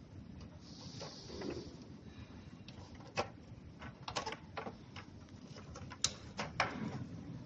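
Scattered sharp clicks and light knocks of tools and parts being handled while working on a treadmill: a short hiss about a second in, a cluster of clicks in the middle, and two louder knocks near the end.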